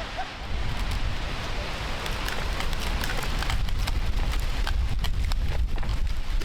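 Strong gusting wind buffeting the microphone. A dense spatter of sharp crackling ticks runs through the middle, like blown debris or rustling branches.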